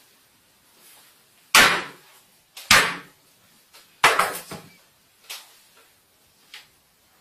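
Claw hammer striking a Samsung smartphone lying on a wooden desk: three hard blows, each about a second apart, followed by two lighter knocks.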